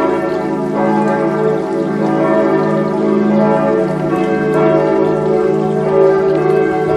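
Church bells ringing together in a full peal, many overlapping ringing tones sounding without a break, calling to the Sunday service.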